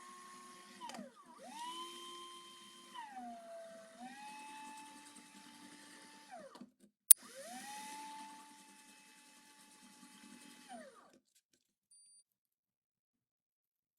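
A small high-speed electric motor, like a hand power tool's, repeatedly spins up to a steady whine and winds down again, about four runs in all, with one sharp click about seven seconds in.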